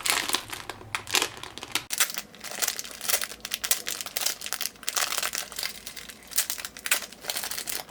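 Plastic packaging crinkling and crackling as it is handled and torn open, in quick irregular bursts.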